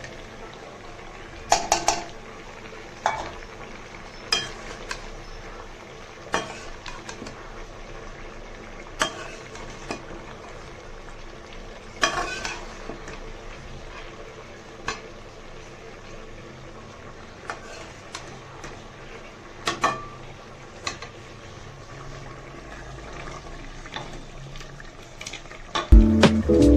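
A spoon stirring and scraping in a cooking pot, knocking against it every second or two, over a low steady sizzle of qeema (minced meat) and karelay (bitter gourd) frying.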